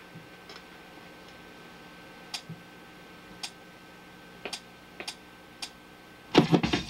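Low steady hum with a thin steady tone from the studio monitors, broken by a handful of faint, irregularly spaced clicks. About six seconds in, loud music bursts in through the speakers.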